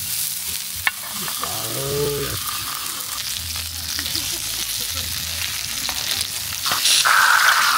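T-bone steak sizzling as it sears on a hot round grill pan, with one sharp click about a second in. The sizzle grows louder near the end, carrying a steady high-pitched note.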